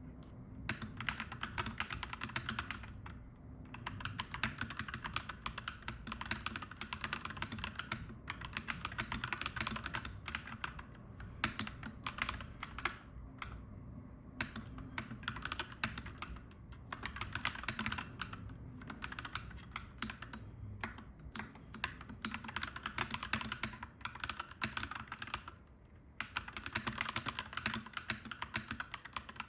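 Clacky mechanical keyboard being typed on quickly and continuously, dense key clicks with a few short pauses, over a low steady rumble.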